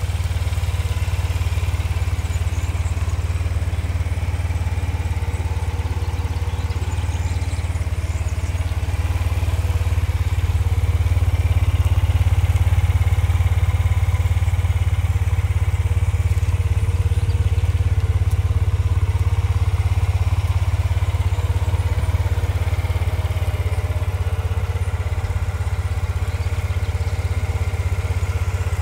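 Honda Silver Wing FJS600 scooter's 582 cc parallel-twin engine idling steadily, a little louder through the middle of the stretch.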